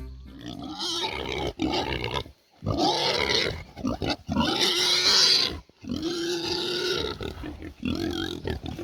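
Pigs squealing, a run of about six long, harsh squeals of a second or so each with short breaks between.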